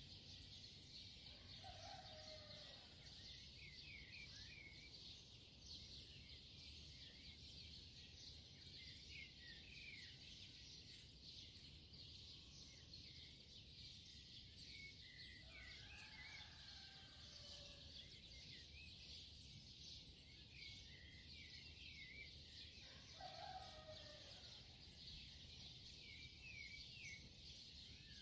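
Faint birds chirping over a steady hiss, with short quick chirps throughout and three slightly fuller, lower calls about 2, 16 and 23 seconds in.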